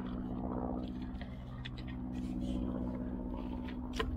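A steady low mechanical hum holding a constant pitch, with a few faint clicks and one sharper click near the end.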